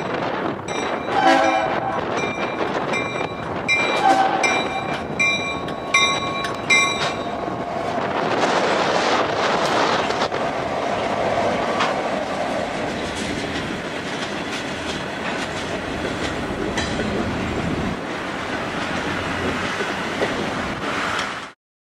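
Grade-crossing bell ringing in even strokes while a BNSF diesel locomotive sounds two short horn blasts in the first few seconds. From about eight seconds in, the locomotive and its freight cars roll through the crossing with a steady rumble and clatter of wheels over the rails.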